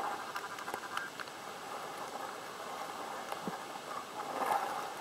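Underwater ambience: a steady crackle of scattered sharp clicks, with a fast, even ticking that fades out about a second in and a louder rushing swell near the end.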